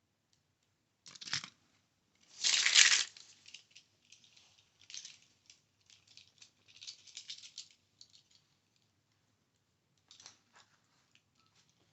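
Hot Wheels toy cars being handled: a short rattle about a second in, a louder rattling clatter a little after two seconds, then scattered light clicks and rattles.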